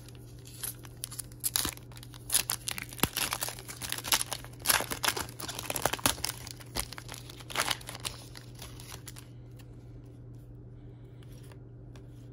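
Foil trading-card pack (2020 Panini Contenders Draft Picks) being torn open and its wrapper crinkled by hand: a run of sharp crackles that stops about nine seconds in, as the cards come out.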